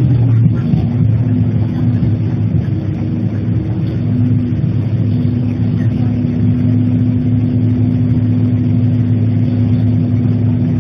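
Bus diesel engine heard from inside the cabin. Its pitch slides down near the start as the bus slows, then it settles into a steady low drone.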